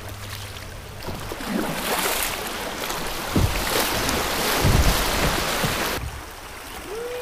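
Floodwater rushing and splashing around a kayak, swelling to a loud wash about a second in and easing off near the end, with a few low thumps.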